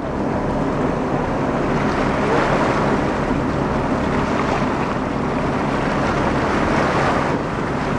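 Steady engine hum of a boat at sea, with water washing and wind buffeting the microphone.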